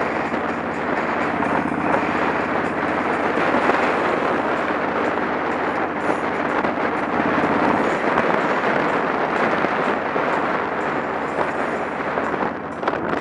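Motorcycle on the move: a steady rush of riding wind over the microphone with the engine running underneath. The engine's low hum drops away about eight seconds in, and near the end the wind noise briefly dips and turns crackly and gusty.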